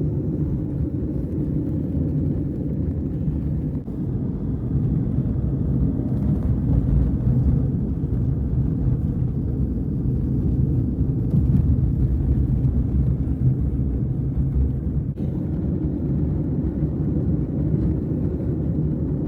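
Gasoline snowblower engine running steadily, a continuous low rumble.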